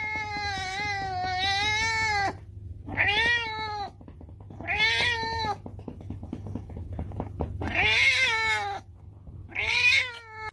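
A cat yowling: one long, drawn-out call, then four shorter meows about every two seconds.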